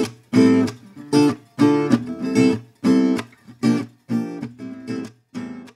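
Background music: rhythmic strummed acoustic guitar chords, about two strokes a second, stopping abruptly at the very end.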